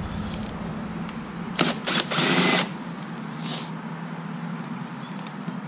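Bauer cordless drill driving a T25 Torx bit to back out a fastener on the air-cleaner breather, run in short bursts: a quick spin about a second and a half in, then a half-second run with a high motor whine, and a faint brief spin a second later.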